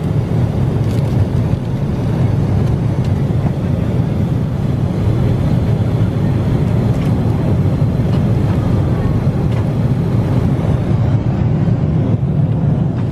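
Steady cabin noise of a Boeing 777-300ER at cruise: a loud, even, low rumble of engine and airflow noise, with a few faint clicks.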